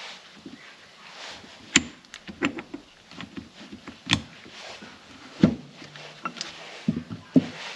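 Steel parts of a limited-slip differential (carrier case, spider gears, clutch pack) being handled and set down on a workbench: irregular metal clinks and knocks, the loudest about two, four and five and a half seconds in.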